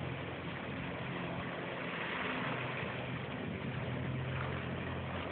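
Jet ski engine running steadily as the craft speeds across the water, a distant hum that holds a fairly even pitch.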